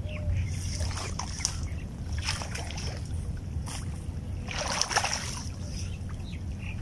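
A hooked barracuda splashing at the surface in shallow water as it is reeled in to shore. The splashes come several times in short bursts, the biggest about five seconds in, over a steady low rumble.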